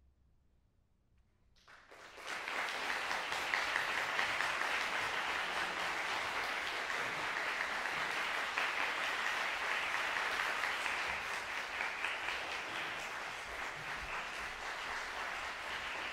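About a second and a half of near silence after the final piano chord, then audience applause breaks out suddenly and goes on steadily.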